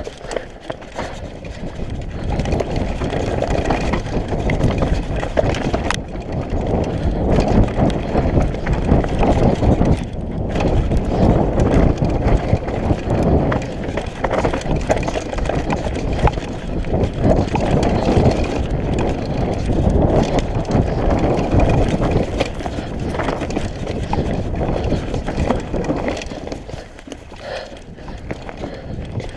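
Mountain bike clattering and rattling fast down a rough dirt trail, a dense run of knocks from the frame, chain and tyres over roots and rocks, with a heavy rush of wind on the mounted camera's microphone. It eases off briefly near the end.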